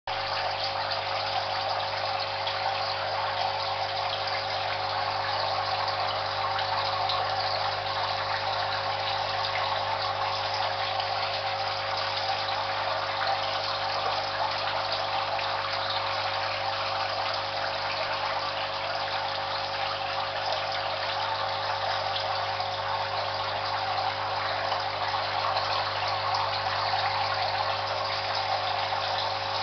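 Aquarium pump running with a steady hum over constant bubbling, gushing water.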